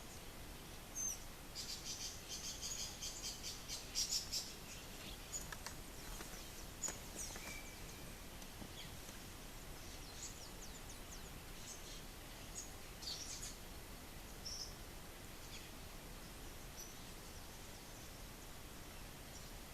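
Birds calling in high, short chirps over a steady hiss. A dense run of rapid chirps comes about two seconds in, followed by scattered single chirps.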